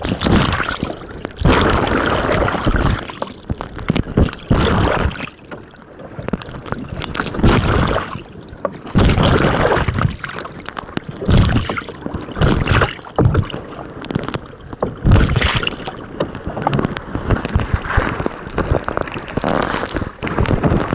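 Water sloshing and splashing against the hull of a Hobie Tandem Island sailing kayak under way, in uneven surges every second or two.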